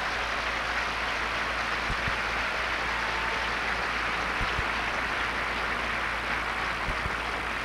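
Large stadium crowd applauding steadily, a dense even clapping that holds at one level throughout.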